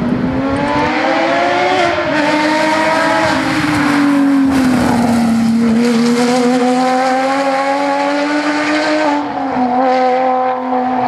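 Rally car engines running at high revs, the note rising and falling, with sudden drops about two seconds in and near the end.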